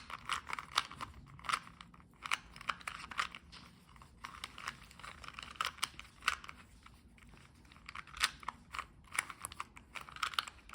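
A plastic 2x2 Rubik's Cube being turned by hand: irregular clicking and clacking of its layers, in quick runs of several turns a second with short pauses between.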